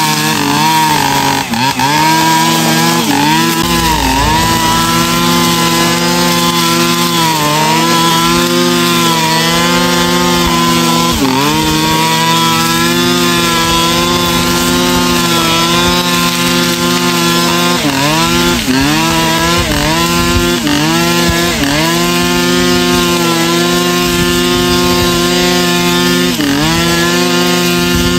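Two-stroke brush cutter with a nylon-cord head running at high revs while cutting grass. Its pitch dips sharply and recovers again and again as the cord bites into the grass and loads the engine.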